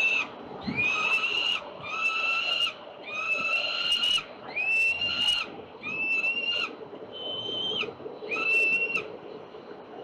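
Young peregrine falcon calling: a run of about seven drawn-out, high, wailing calls, each rising quickly at the start and then held, roughly one a second, with short gaps between them.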